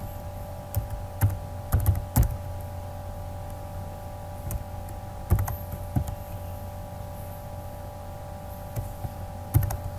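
Typing on a computer keyboard: scattered keystrokes, some in quick clusters of two or three, separated by pauses, over a steady hum.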